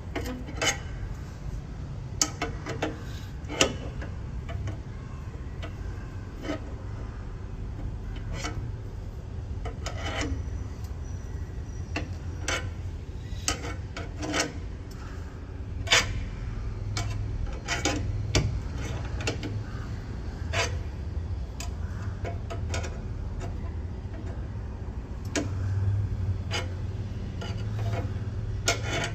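Irregular metal clicks and scraping from hand tools working a car's jack and wheel during a tire change, over a steady low rumble.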